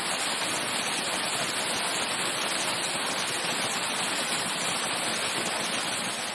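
Waterfall heard from its base: a steady, dense rush of falling water with no letup.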